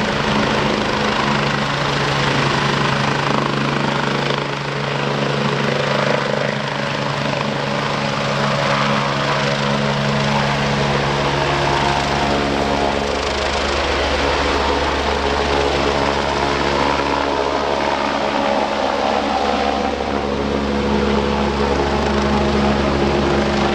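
Care Flight rescue helicopter running, its engine and rotor giving a loud, steady sound whose tones shift about halfway through.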